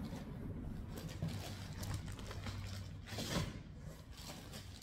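Quiet room with a low steady hum and faint handling noises as yarn is unpacked. A soft rustle comes about three and a half seconds in.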